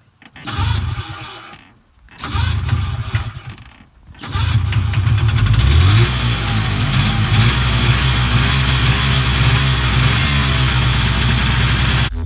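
1979 Ski-Doo Citation 300 snowmobile's two-stroke engine being pull-started cold: two pulls on the recoil starter that don't keep it running, then on the third about four seconds in it catches, revs up briefly and settles into a steady run.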